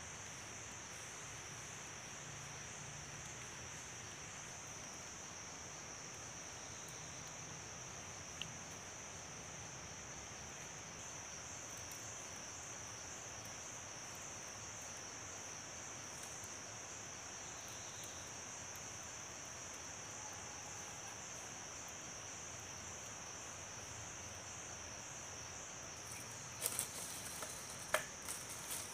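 Steady high-pitched insect chorus with a slight pulse, running throughout. Near the end come several sharp knocks of a machete striking thin bamboo sticks.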